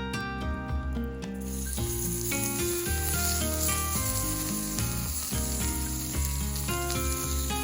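Background music with a melody of stepped notes. About a second and a half in, food starts sizzling in a hot pan and keeps sizzling under the music.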